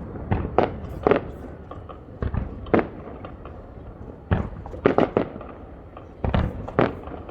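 Fireworks shells bursting in a digitally timed starmine barrage: about ten sharp bangs in quick clusters of two or three, over a low steady rumble.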